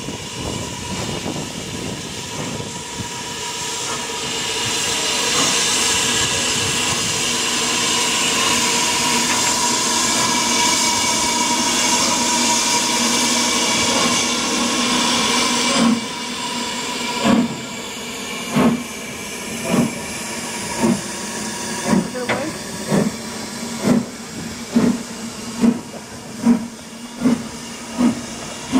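BR Standard Class 4 4-6-0 steam locomotive No. 75029 starting away with a train. A steady, loud hiss of steam, the cylinder drain cocks blowing, cuts off abruptly about halfway through. Then the exhaust chuffs come faster and faster as it gathers speed.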